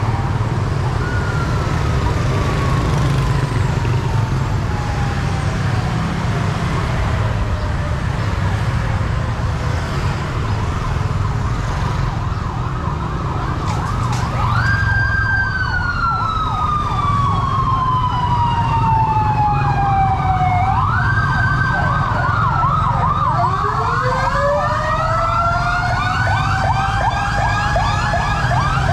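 Motorcade escort sirens approaching over steady motorbike traffic. About halfway in, a wail sweeps up and slides slowly down, twice, overlaid by a fast yelping siren, and a second wail winds up near the end.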